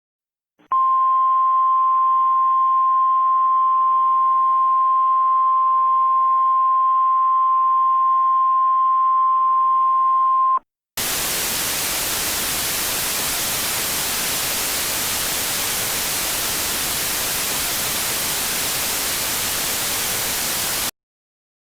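A broadcast alert channel going off the air: a single steady beep-like tone near 1 kHz held for about ten seconds. After a brief gap comes loud, even static hiss for about ten seconds, which cuts off suddenly.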